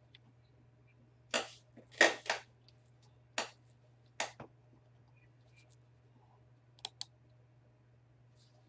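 Scattered clicks of a computer keyboard and mouse: several sharp clicks in the first half and a quick pair near the end, over a faint steady low hum.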